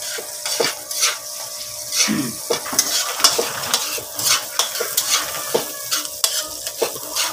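Chopped ingredients sizzling in hot oil in a wok, stirred with a metal spatula that scrapes and clinks against the pan in repeated short strokes.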